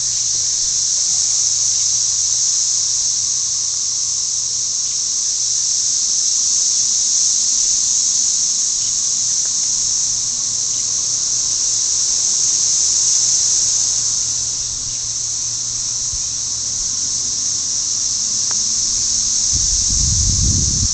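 Dense chorus of periodical cicadas: a loud, steady, high-pitched shrill drone with no break, deafening up close. Near the end a low rumble on the microphone joins it.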